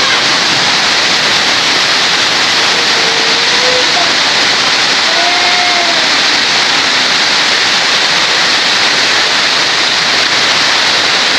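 Heavy rain pouring down in a storm, a loud, steady hiss.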